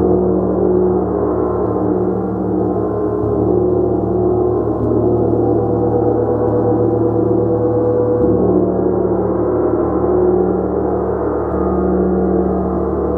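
A gong played continuously with soft mallet strokes, a fresh stroke every three to four seconds, its overlapping low tones ringing on into a steady, sustained wash.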